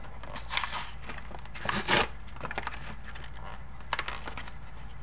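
Crinkling and tearing of a sealed baseball card pack wrapper being worked open by hand, in two louder rustling bursts in the first two seconds, then a few faint clicks.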